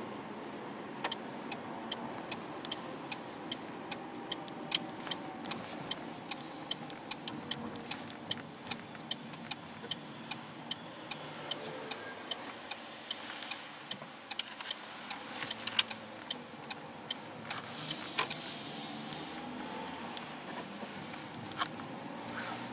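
Car interior with steady road and engine noise, and a turn-signal indicator ticking evenly at about two and a half ticks a second for roughly the first half. After it stops there are a few irregular clicks and a brief rush of noise.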